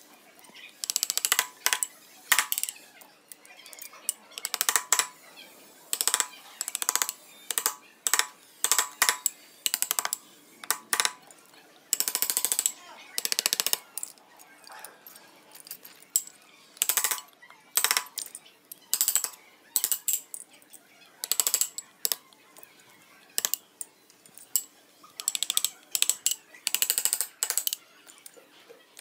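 Hand mallet striking a wood-carving chisel, with repeated sharp taps in short irregular clusters and brief pauses between them as the chisel is driven into soft wood.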